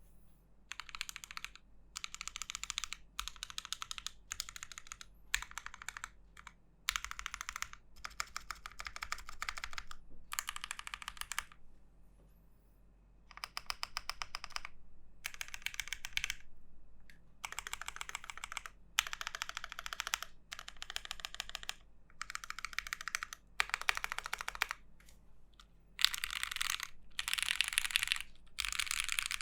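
Mechanical keyboard typing: an Alice-layout, top-mount aluminium keyboard with JWK Dogikon switches on a UHMWPE plate. The keys are struck in quick runs lasting a second or two each, with short pauses between runs.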